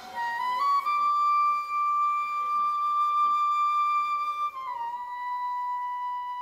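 Solo flute music: a couple of quick rising notes lead into a long held high note lasting about four seconds, which then slides down a step to a lower held note near the end.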